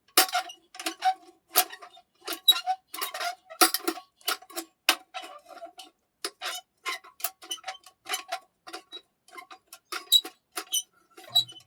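Irregular run of sharp metallic clinks and taps, several a second, each with the same short ring: small metal objects knocked together for a foley take.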